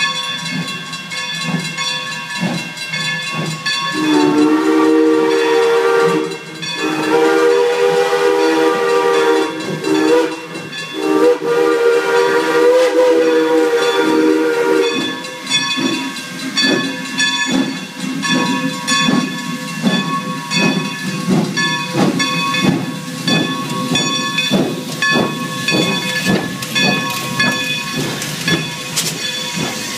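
Steam locomotive No. 40 blowing its steam whistle in several long blasts from about four seconds in to about fifteen seconds in, over hissing steam as it moves off. A level-crossing bell rings steadily throughout.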